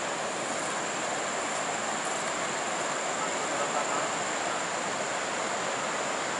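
Steady rushing of a fast river flowing over rocks, with a constant high-pitched insect buzz above it.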